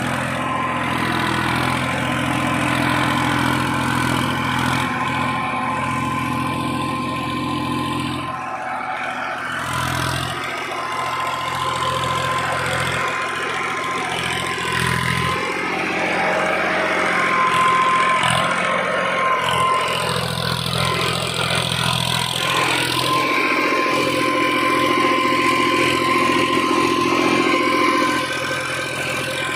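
Massey Ferguson 241 backhoe loader's diesel engine running steadily as the machine works, with its note shifting now and then and a thin, steady high whine over it through much of the time.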